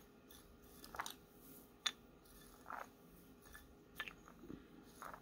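Metal spoon stirring chunky glitter in a glass bowl: a few faint gritty scrapes and light clinks against the glass, about one a second.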